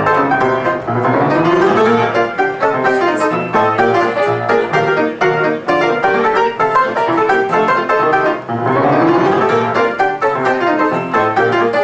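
Upright piano played fast in ragtime style, with quick rising runs up the keyboard about a second in and again about eight seconds in.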